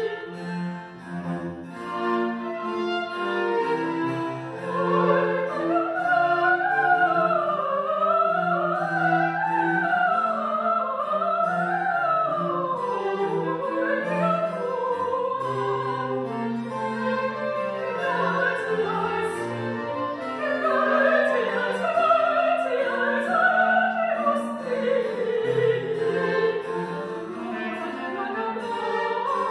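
Soprano singing fast baroque runs, with two violins, cello and keyboard continuo accompanying. Held notes open, and the quick up-and-down runs start about four seconds in.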